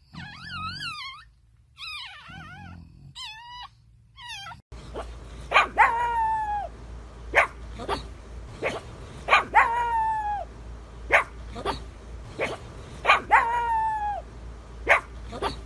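Newborn puppies squeaking and whimpering in high, wavering cries. After an abrupt cut, a pug barks over and over, about one to two seconds apart, several barks trailing off into a short falling howl.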